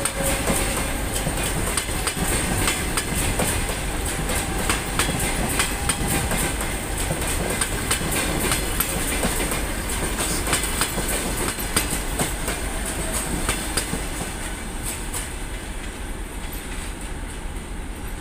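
Passenger coaches rolling past close by, their wheels clattering over the rail joints in a rapid, uneven clickety-clack over a steady rolling rumble. The sound fades over the last few seconds as the rear coach moves away.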